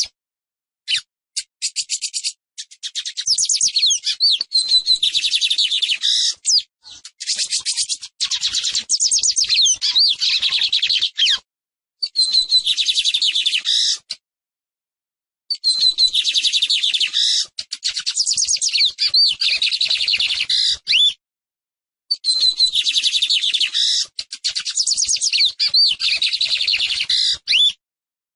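Lined seedeater (Sporophila lineola) singing: high, rapid chattering trills mixed with quick sweeping notes, delivered in bursts of a few seconds each with short breaks between them.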